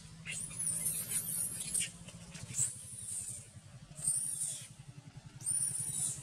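Young long-tailed macaque squealing: about five short, very high-pitched squeaks that each rise and fall in pitch, with a low steady hum underneath.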